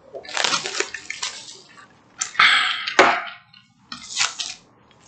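Drink being sipped from a large paper fountain cup: three noisy slurping pulls with short pauses between them.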